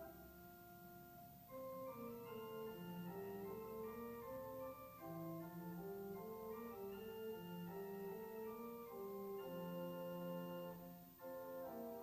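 Organ playing slow, sustained chords in a quiet, hymn-like instrumental passage. It is softer for the first second and a half and fades briefly near the end before the next phrase begins.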